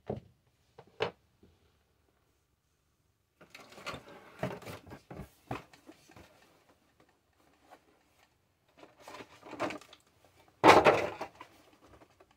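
Cardboard toy packaging being handled: a couple of light knocks, then bouts of rustling and scraping, with the loudest thump near the end.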